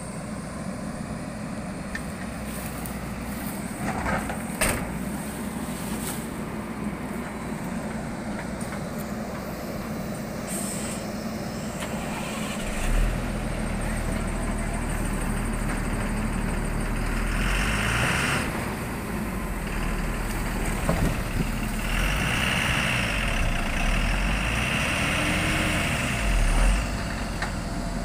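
Heavy diesel engines of a tipper truck and a backhoe loader running steadily. About halfway through the engine sound grows louder and heavier. Short bursts of hiss come a little after that and again later.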